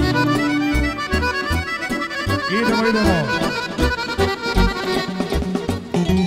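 Live Balkan folk band playing a fast tune: a quick accordion-like lead with electric violin and electric guitar over a steady bass beat, with swooping pitch glides about halfway through.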